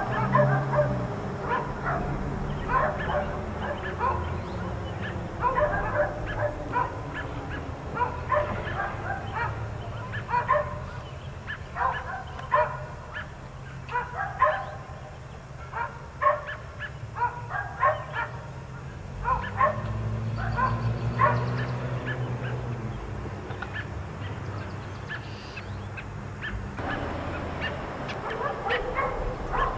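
Dogs barking over and over in short, sharp barks, about two a second. The barking thins out for a few seconds near the end, then picks up again.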